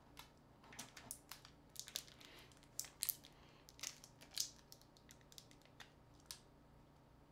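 A smartphone being pried apart by hand with a small tool: a run of faint, irregular sharp clicks and crackles, thickest in the middle and stopping about six seconds in.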